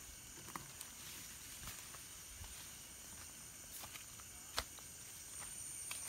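Faint outdoor ambience: a steady high-pitched insect drone, with scattered small clicks and rustles of footsteps through grass and one sharper click about four and a half seconds in.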